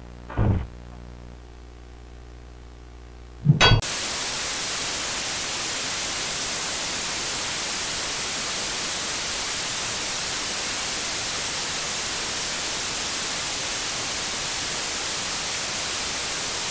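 Low electrical hum with a soft thud, then, about three and a half seconds in, a short loud burst cuts over to a steady hiss of white-noise static, as from a corrupted analog video signal.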